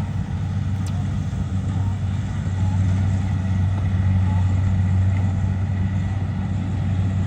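Kubota DC70 combine harvester's diesel engine running steadily with a deep, even hum, a little louder in the middle.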